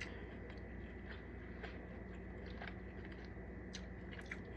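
A person chewing food close to the microphone, with soft, scattered mouth clicks and smacks every second or so.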